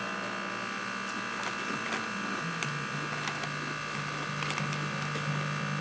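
A steady machine-like hum whose low tone steps down in pitch about two and a half seconds in, with a few faint clicks.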